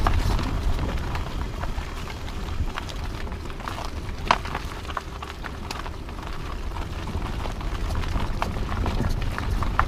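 Car tyres rolling over a leaf-covered gravel track: a steady low rumble with scattered ticks of gravel against the car, and one sharper crack about four seconds in.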